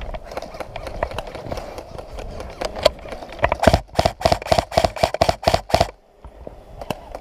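Airsoft gun firing a quick string of about ten shots, roughly four to five a second, after a few scattered single shots; the shooting stops suddenly near the end.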